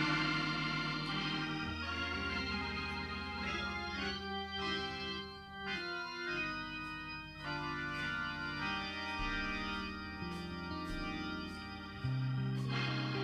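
Organ playing slow, held chords, moving to a new chord every couple of seconds.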